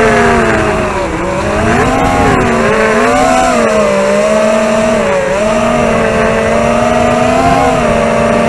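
ZMR250 racing quadcopter's four DYS 2204 brushless motors and tri-blade props whining, heard close from the camera on the quad, with a rumble underneath. The motor tones fall about a second in, climb again, then hold fairly steady with small wobbles as the throttle changes, dipping once more near the end.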